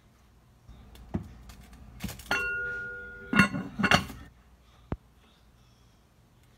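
Hammered aluminium pot lid knocking against the pot: a strike about two seconds in rings on for about a second, then a quick rattle of clinks as the lid is set down, and one last click.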